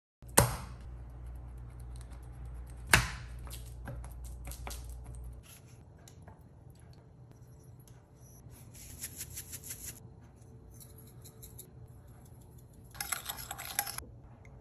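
Kitchen prep handling sounds: two sharp knocks about two and a half seconds apart near the start, then scattered clicks and taps. In the middle comes a quick rattling patch as liquid is poured into a bowl of marinade, and near the end a short noisy burst.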